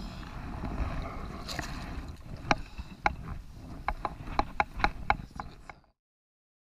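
River water sloshing and splashing around hands as a coho salmon is released, then a string of about ten sharp, ringing drip-like plinks over some three seconds.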